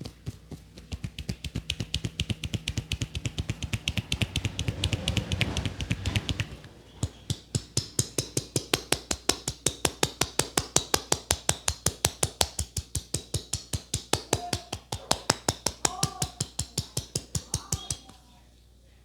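Percussive head massage: the barber's hands slap in a fast, even rhythm of about five to six strokes a second. There is a brief break about six seconds in, and the strokes stop near the end.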